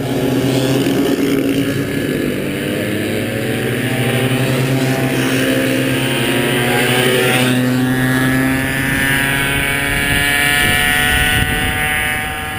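Small two-stroke kid kart engines (50cc and 80cc) running at speed, with a steady buzzing note whose pitch bends as karts go by in the middle stretch.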